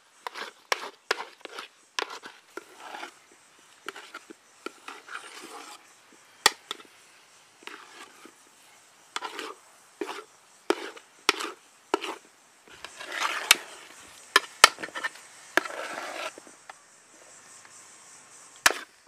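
Steel ladle stirring and scraping thick semolina kesaribath around a steel pot, in irregular wet scrapes with sharp clicks of metal on metal, busier about two-thirds of the way through. The sweet is being stirred until it pulls away from the bottom of the pot, the last stage of cooking.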